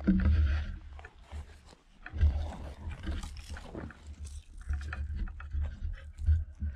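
Low, uneven rumble on the microphone, rising and falling in gusts, with scattered rustling clicks.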